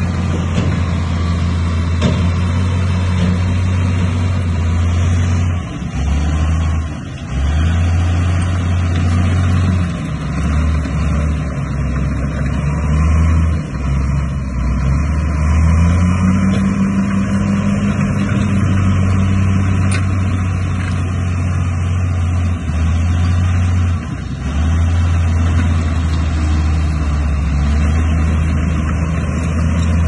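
Bulldozer's diesel engine running under load with a steady low drone. The engine pitch rises for a few seconds around the middle, and the sound dips briefly a few times.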